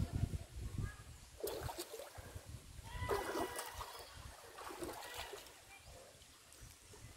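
Shallow river water trickling and splashing over stones, with a few short animal calls about one and a half, three and five seconds in.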